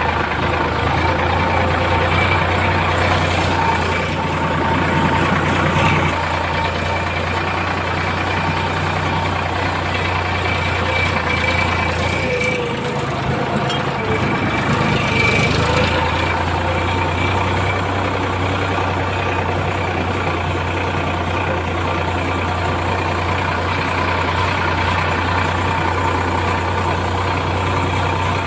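Heavy diesel engine running steadily, its low hum dipping and wavering in pitch for a few seconds about halfway through.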